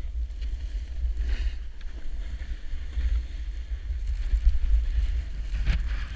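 Wind buffeting the action camera's microphone in a steady low rumble while riding downhill over snow, with brief hissing scrapes of edges on the snow about a second in and again near the end.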